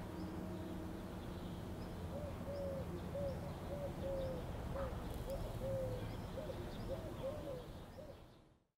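About a dozen short bird calls, each rising and falling, come over a steady low hum of city ambience. The sound fades out just before the end.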